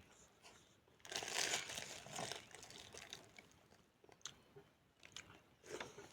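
Close-miked chewing and crunching of food, loudest for about a second and a half starting a second in, then a few scattered mouth clicks.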